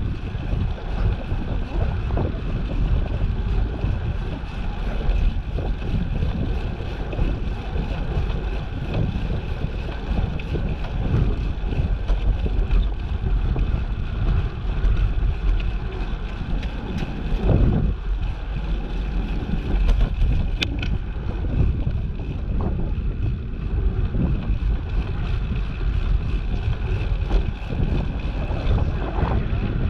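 Wind buffeting the microphone of a camera riding on a moving bicycle, a steady low rumble.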